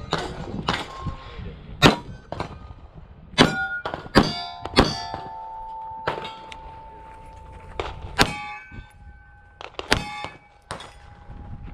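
A string of pistol shots at steel targets, the hit plates ringing with a clear metallic tone that lingers after each strike, with a pause of a few seconds mid-string.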